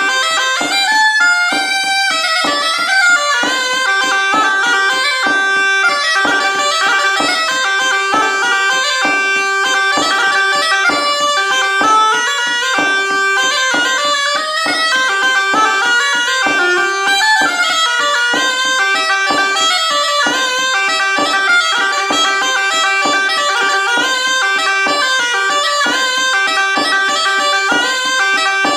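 Cabrette, the bellows-blown bagpipe of Auvergne, playing an ornamented bourrée tune: a continuous, reedy melody of quick notes with no breaks between phrases.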